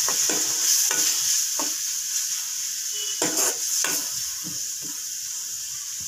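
Onion and spice masala sizzling in hot oil in a metal pan while a slotted metal spoon stirs it, scraping and tapping against the pan several times.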